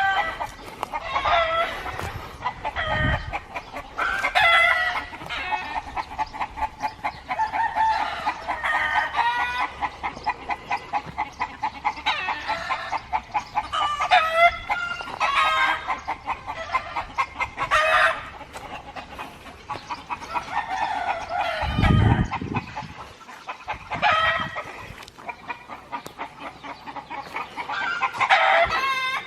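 A flock of chickens calling continuously, with fast clucking runs and longer drawn-out calls. A low thump about three quarters of the way through.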